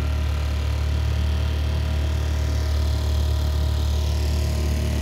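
Small boat's engine running steadily under way, a constant low drone.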